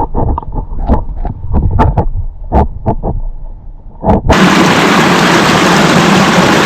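Irregular muffled knocks and rumbles close to the microphone. About four seconds in, the sound cuts abruptly to a loud, steady rush of flowing creek water.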